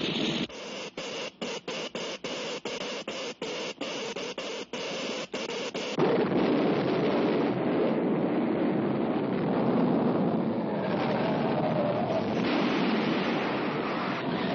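Cartoon sound effects: a hissing electric crackle chopped into short pulses about three times a second. About six seconds in, a loud, continuous earthquake rumble of heavy, dense noise takes over.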